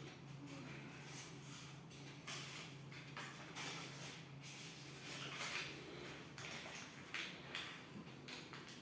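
Faint, scattered rustling and light knocks of things being handled, over a steady low hum.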